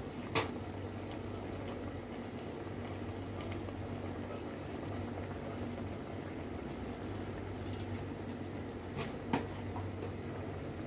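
Steady noise of water at a rolling boil. A metal ladle knocks sharply against an aluminium pot about half a second in and twice more near the end, as drained part-cooked rice is scooped in.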